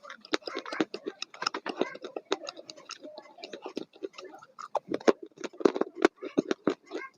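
Food being chewed: a fast, irregular run of small clicks and crunches.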